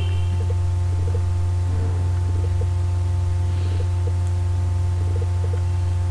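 Steady low electrical hum, mains hum picked up on the recording, constant in level with a few faint scattered ticks.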